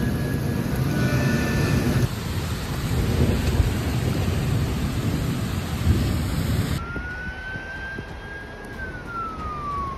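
Severe thunderstorm: heavy rain and wind noise with low rumbling thunder, in several short pieces joined by abrupt cuts. In the last piece a single steady tone holds, then slides down in pitch near the end.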